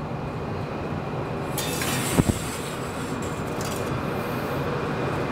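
A steady rushing background hum, with a single sharp knock about two seconds in as the lit wax fire starter is set down on the oven's stainless-steel deck.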